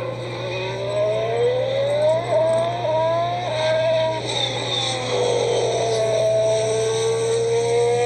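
2019 Formula 1 car's 1.6-litre turbocharged V6 engine accelerating along the track. Its pitch rises with short dips at each upshift, falls about halfway through as the car slows, then climbs again.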